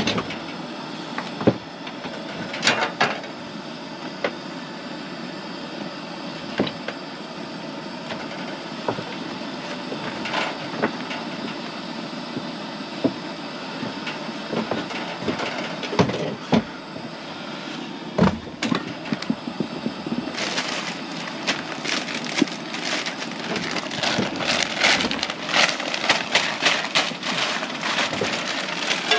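Olive oil heating in a frying pan on a propane camp stove: a steady hiss with scattered clicks and knocks of utensils. About two-thirds of the way in, a dense crackling sizzle starts in the pan.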